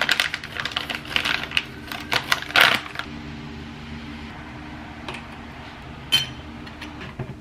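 Metal spoon clinking and scraping against a stovetop moka pot's filter basket as ground espresso is spooned in: a quick run of light clicks over the first three seconds, then one sharper clink about six seconds in.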